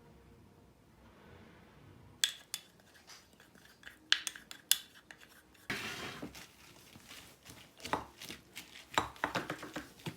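Utensils clinking and scraping against bowls and dishes. After a quiet start there are a few sharp separate clicks, then busier clatter from about halfway.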